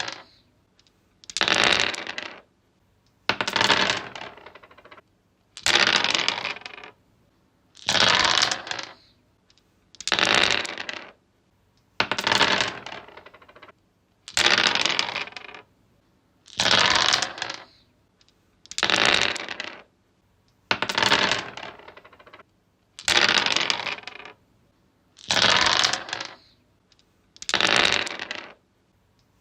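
Dice rolled again and again on a tree's wooden surface, each roll a sharp clatter that rattles and dies away over about a second. About thirteen rolls come evenly spaced, roughly one every two seconds.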